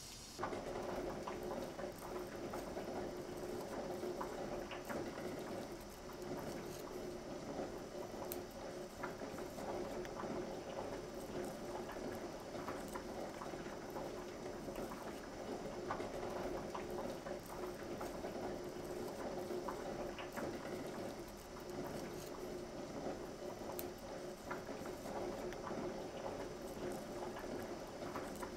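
Skins being peeled off cooked potatoes by hand: soft scraping, squelching and many small clicks as the skin is pulled away, over a steady low hum.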